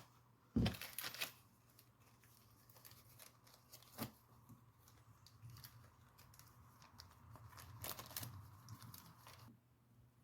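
Plastic packaging of a carburetor rebuild kit being opened and handled: a loud tearing sound just after half a second in, a sharp click around four seconds, then crinkling and rustling of the plastic that stops near the end.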